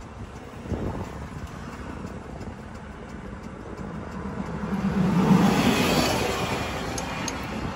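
Four-cylinder diesel engine running. Its revs rise about four and a half seconds in, peak a second later and ease back down.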